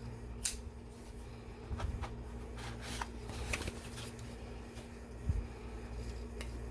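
A package being opened by hand: scattered rustles, scrapes and light clicks of the packaging being handled, with a sharper click about five seconds in.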